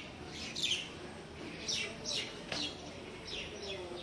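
Small birds chirping: a string of short, high chirps, each falling in pitch.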